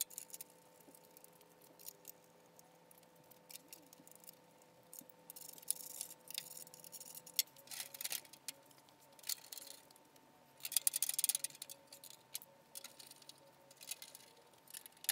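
Quiet handling of small metal parts as aluminium sheet panels and the tow hook receiver are bolted up: scattered clicks, rattles and brief scraping rustles, with a few busier clusters near the middle, over a faint steady hum.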